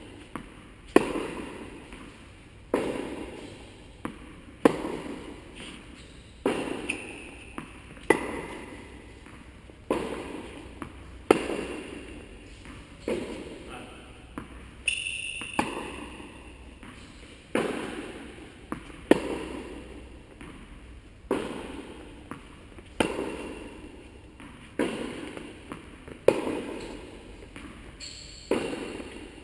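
Tennis rally: the ball is struck by rackets and bounces on the court. A sharp impact comes roughly every second, and each one echoes through a large indoor hall.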